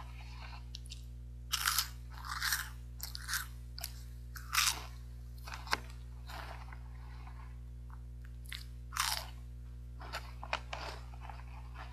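Crunching and chewing of caramel-coated corn puffs and peanuts: a handful of short, loud crunches, most in the first half, a quiet pause, then a few more near the end.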